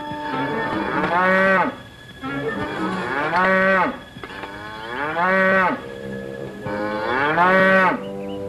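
Cattle mooing: four long moos about two seconds apart, each rising and then falling in pitch.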